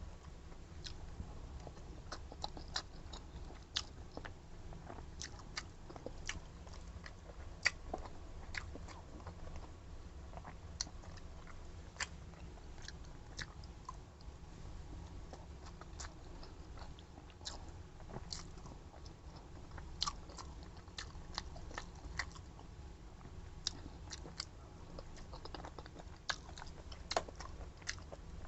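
Close-up chewing and mouth sounds of a person eating chicken Bicol Express, with many short, irregular clicks and smacks over a steady low hum.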